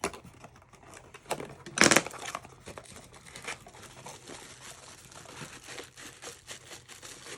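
Product packaging being handled and opened: crinkling and rustling with scattered small clicks, and one louder tearing crunch about two seconds in.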